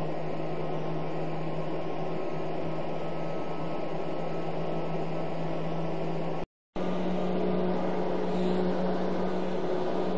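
Power Mac G5's cooling fans running fast and loud as a steady whooshing drone with a low hum, during a live-DVD boot before the system's modules load and the fans settle. The sound cuts out completely for a moment about six and a half seconds in.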